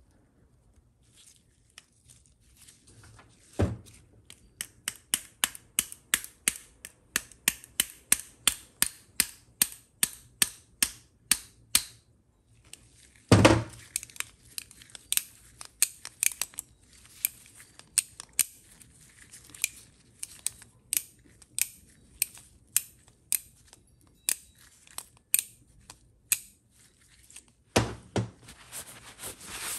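A long run of light, sharp clicks, about two a second, from a TH350 transmission governor and its gear being handled and turned in gloved hands. Three heavier knocks of the part against the workbench come a few seconds in, about midway, and near the end.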